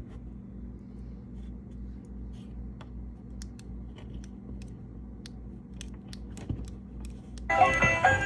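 Faint scattered clicks over a low steady hum, then near the end a singing Chihuahua plush toy starts its loud, tinny electronic song.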